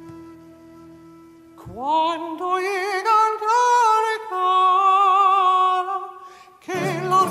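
Countertenor singing a slow, sustained line with vibrato. He slides up into his first note about two seconds in, over a quiet held instrumental drone. Near the end the ensemble comes in loudly beneath the voice.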